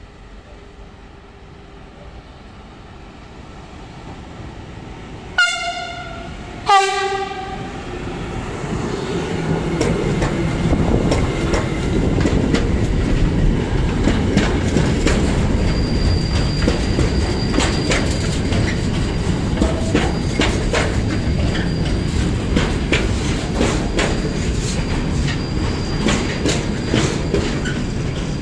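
An electric freight locomotive sounds two short horn blasts about a second apart as it approaches. An intermodal container train then passes close by with a rising, then steady rumble of wagons and a rapid run of clicks as the wheels cross rail joints. A thin high squeal comes in about halfway through.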